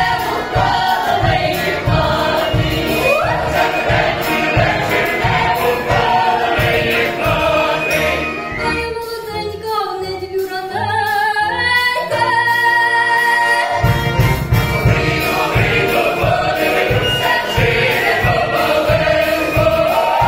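Ukrainian folk choir singing a folk song with a female soloist, over a steady low beat that drops out for a few seconds midway and then comes back.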